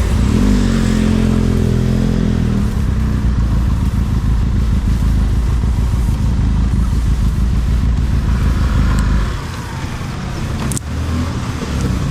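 Benelli TRK502X motorcycle's 500 cc parallel-twin engine running as the bike rides along, over a heavy low rumble. About nine seconds in the low rumble drops away and the sound quietens, with a sharp click shortly after.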